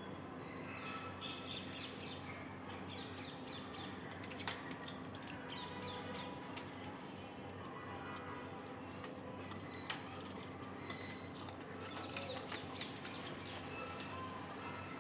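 Birds calling and chirping over a steady low hum, with a few sharp clicks or knocks at about four and a half, six and a half and ten seconds in.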